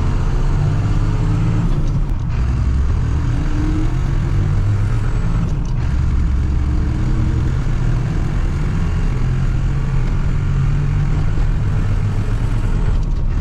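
Tractor engine running steadily, heard from inside the cab, its pitch drifting slightly.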